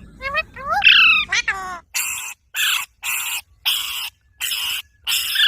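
Green parrot calling: a few short rising chirps, then a run of harsh squawks at about two a second.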